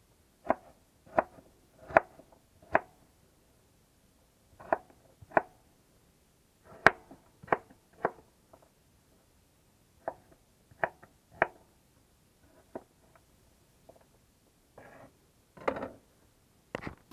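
Kitchen knife chopping potato on a wooden cutting board: sharp single knocks in short runs of two to four, roughly two a second, with pauses between runs. A few softer, longer scraping sounds near the end.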